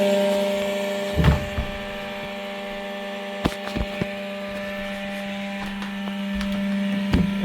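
Bottom cooling fan making extreme noise: a loud, steady hum on one pitch with several overtones above it, which gets somewhat quieter about a second in. A few sharp clicks or knocks come over it, about a second in, a cluster about three and a half to four seconds in, and again near the end.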